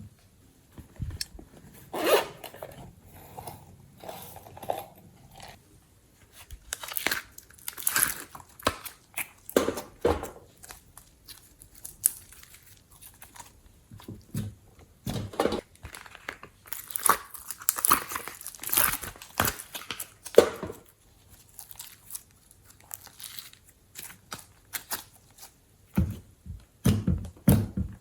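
Hands squishing and stretching glossy slime, giving irregular sticky crackles, clicks and pops in uneven clusters.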